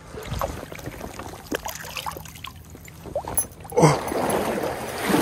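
Shallow river water splashing as a hooked brown trout is played and brought to the bank: scattered small splashes and drips, then a sudden louder splashing rush about four seconds in.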